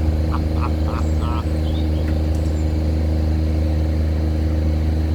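An engine running steadily at idle, an even low hum that does not change.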